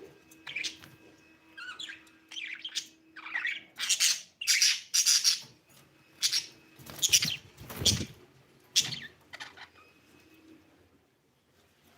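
Budgerigar chirping: a run of short, high, scratchy chirps and squawks that come thick and loud in the middle and thin out towards the end. A low bump comes about eight seconds in.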